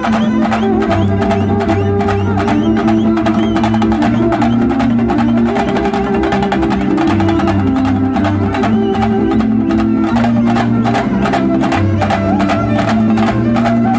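Live chenda-and-violin fusion music: chenda drums beaten in fast, dense strokes under a violin melody, over a low bass line of held notes.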